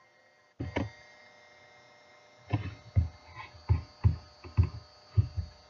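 A steady electrical hum comes in just over half a second in, with a sharp click; then, from about halfway, a run of soft knocks and clicks, roughly two a second.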